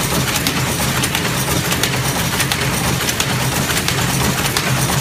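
SX 460E semi-automatic industrial sewing machine running: a steady mechanical hum with faint scattered ticks.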